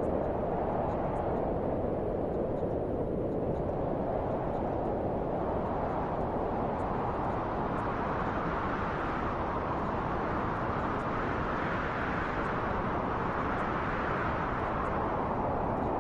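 Wind sound, a steady rushing noise that swells and eases in slow gusts.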